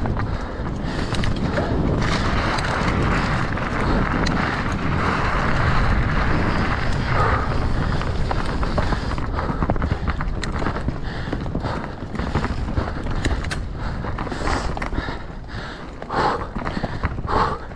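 Mountain bike descending a rough trail at race pace: tyres on dirt and rock under a constant clatter of chain and frame, with many sharp knocks.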